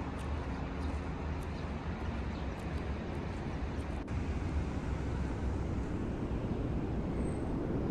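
Outdoor city ambience: a steady low rumble of distant traffic, growing slightly louder near the end.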